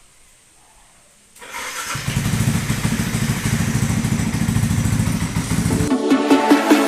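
Yamaha R15 V3's single-cylinder four-stroke engine starting about a second and a half in and then running steadily. Electronic music cuts in near the end.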